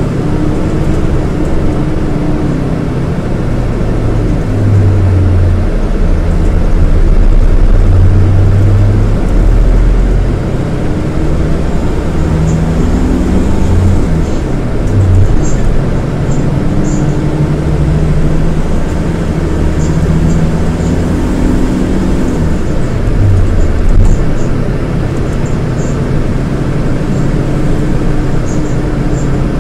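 Scania DC9 five-cylinder 230 hp diesel engine of a Scania K230IB coach running under way. The engine note climbs and then drops sharply about halfway through and again about three-quarters of the way through, as the semi-automatic gearbox changes gear.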